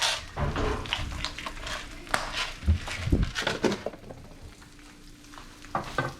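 Kitchen utensils and cookware being handled at the stove: a run of clicks and knocks, with a few low thumps about three seconds in, then quieter after about four seconds.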